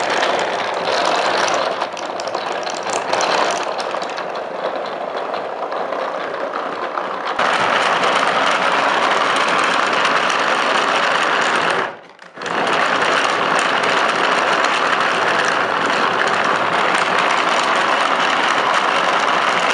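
A car engine running, dense and noisy. It gets louder about seven seconds in and drops out briefly about twelve seconds in.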